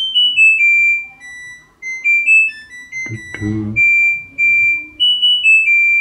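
LG F14B8TDA front-loading washing machine playing its end-of-cycle melody: a tune of clean electronic beeps stepping up and down in pitch, the signal that the wash cycle has finished.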